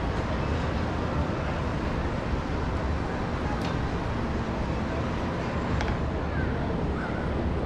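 Steady outdoor ambience heard from high up: a low rumble of wind and distant city traffic. Two faint clicks fall in the middle, and a couple of faint bird chirps come near the end.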